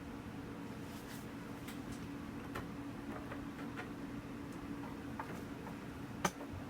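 Steady hum of a desktop computer running, with a handful of scattered light clicks; the sharpest comes about six seconds in.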